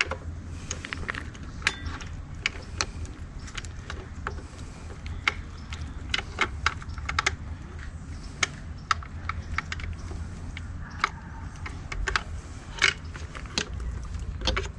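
Irregular small clicks and rattles of wiring and plastic connectors being handled and pushed into an e-bike's battery housing, over a low steady hum.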